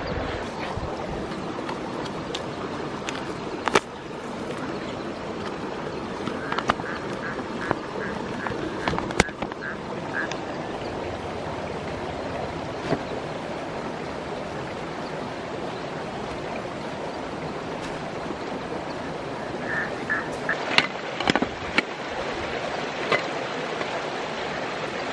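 Steady rushing of a nearby river, with clicks and knocks of camping gear being handled. Twice, a short run of evenly spaced high calls from an animal comes through, about two a second: once around the middle and once near the end.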